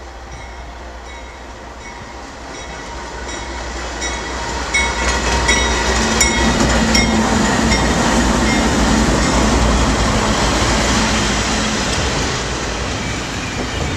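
Freight train's lead GE Dash 9-44CW diesel locomotives pass close by, their engines growing louder as they approach and loudest midway. The wheels click over the rail joints as the locomotives go past.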